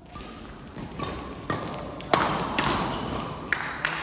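A run of about six sharp hits and thuds, irregularly spaced, the loudest a little past two seconds in: a ball being struck and bouncing during play.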